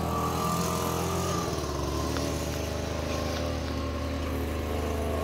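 An engine running steadily at an even pitch.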